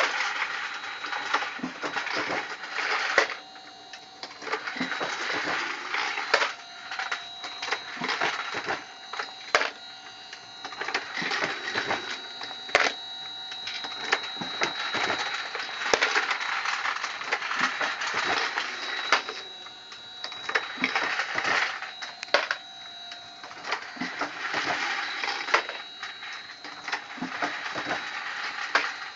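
Motor-driven Dillon 1050 progressive reloading press cycling automatically: a continuous metallic clatter and rattle of the mechanism and feeders, with a sharp clack roughly every three seconds as each cycle turns over.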